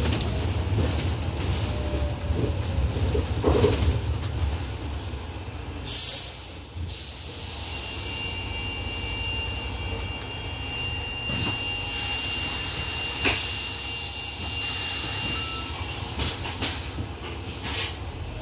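New World First Bus double-decker no. 6017 under way, heard from the upper deck: a steady low engine and road rumble. About six seconds in there is a short, loud burst of hiss, a thin high whine runs through the middle, and there are a few knocks near the end.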